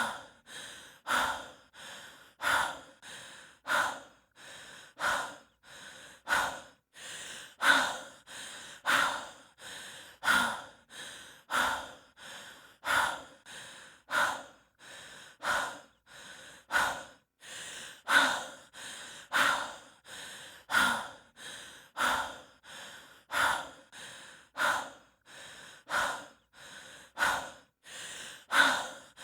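A person breathing heavily and fast from exertion while hiking, in an even rhythm of about three breaths every four seconds. Each breath is a loud, sharp puff followed by a softer one.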